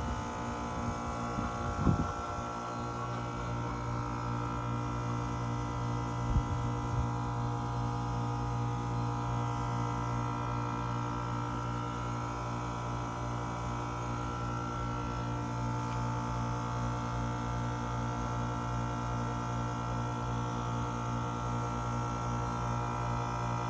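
Steady machine hum from a running air-conditioning unit, one even drone with several steady tones above it, with a couple of light knocks from handling the phone about two and six seconds in.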